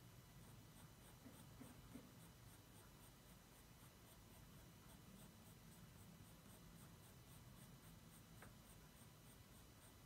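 Faint scratching of a coloured pencil shading on drawing paper, in quick short strokes about four a second.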